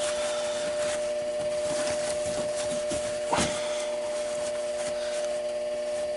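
Bell & Gossett LR20BF heating circulator (booster) pump giving a steady droning hum, the sign of its motor bearings running short of oil after years without lubrication. Rubbing handling noise over it, with one short knock a little past the middle.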